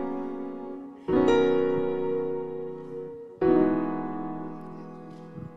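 Intro theme music of sustained chords, each struck and left to ring and fade, with new chords coming in about a second in and again about three and a half seconds in, dying away near the end.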